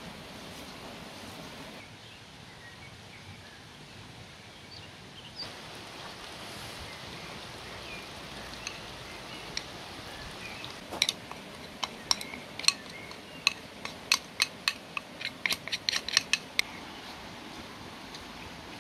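Hands kneading a moist bulgur mixture in an enamel bowl, a soft steady hiss, with a quick run of about twenty sharp clicks and slaps over some five seconds starting about halfway through.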